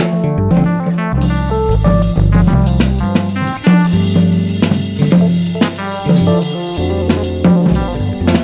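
Instrumental jazz band playing loudly: a drum kit with bass drum and snare hits drives over a bass line and pitched melody notes. Cymbals come in about a second in and keep going.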